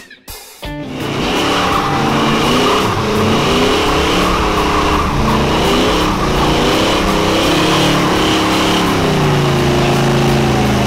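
A car doing a burnout, starting about a second in: the engine is held at high revs that rise and fall while the spinning tyres squeal.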